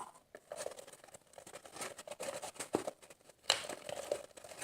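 Sticky homemade slime being worked by hand, giving a run of irregular small wet clicks and crackles, loudest about three and a half seconds in. The mix is still sticky and more activator is being worked into it.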